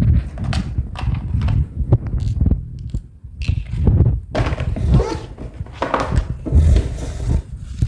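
Irregular knocks and clatter of objects being handled, over a low rumble of handling noise.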